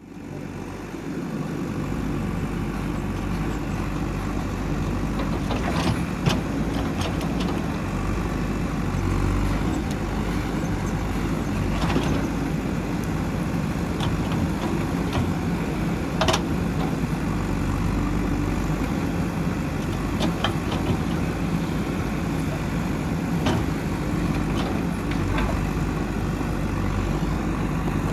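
JCB 3DX backhoe loader's diesel engine running steadily while the machine works, with sharp clanks or knocks now and then, about every few seconds.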